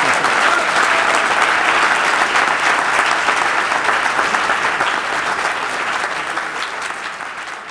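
Audience applauding, dense clapping that slowly fades out near the end.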